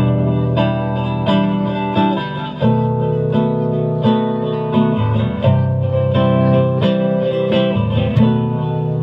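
Acoustic guitar playing an instrumental intro of chords, a new chord struck roughly every half second to second.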